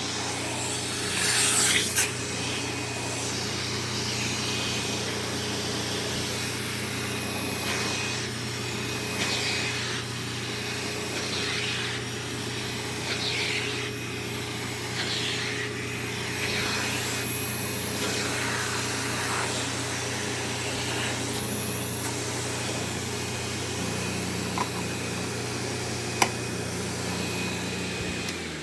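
Sharp Twin Energy upright vacuum's two-stage Ametek/Lamb motor running steadily at full suction, with brief scraping and rushing sounds coming and going over the hum. At the very end it is switched off and starts winding down.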